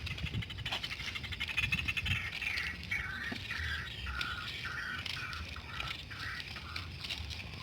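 An animal calling: a fast rattling chatter, then a run of about a dozen short repeated notes, roughly two or three a second.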